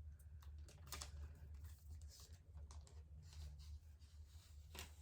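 Faint, scattered light clicks and taps from handling a tablet and its packaging, over a low steady hum.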